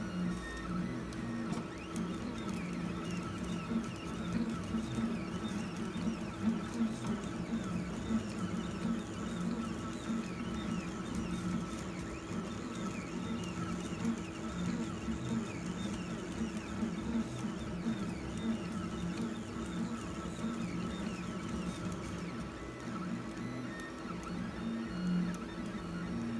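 3D printer's stepper motors running through a print, a whirring hum whose tones keep stepping and changing pitch as the moves change.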